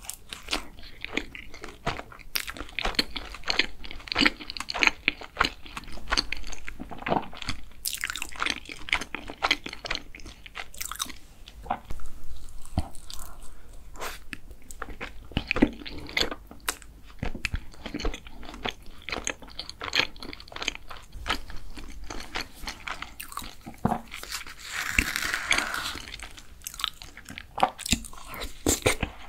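Close-miked eating: biting into and chewing a soft black sesame cream doughnut, with many small wet mouth clicks and smacks. A short rustling scrape comes about 25 seconds in, as a spoon goes into a cup of shaved ice.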